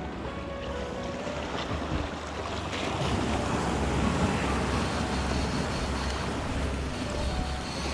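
Sea surf washing against the rocks, swelling louder about three seconds in, with wind buffeting the microphone.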